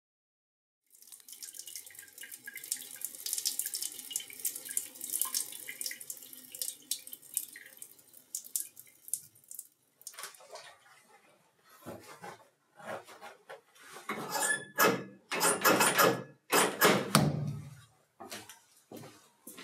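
Shower water running in a small tiled bathroom: a steady hiss of spray that, about halfway through, breaks up into irregular splashes and gushes.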